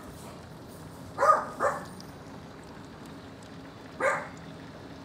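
A dog barks three times, twice in quick succession about a second in and once more about four seconds in, over steady heavy rain.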